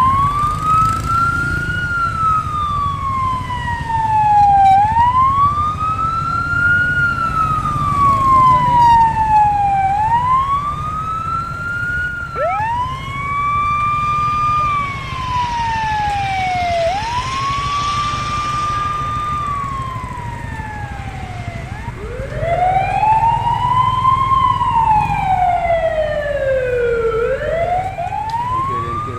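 Fire truck siren wailing, each cycle climbing quickly and then gliding slowly down, about every five seconds, over a low engine and traffic rumble.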